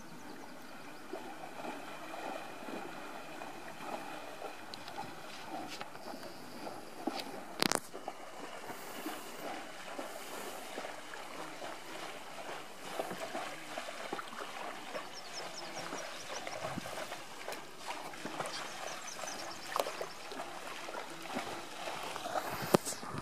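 Cow moose and calf wading and splashing through shallow lake water, a steady irregular sloshing that grows into louder splashes near the end as they hurry along the shore. A single sharp knock comes about 8 s in, and a small bird chirps in short high runs a few times.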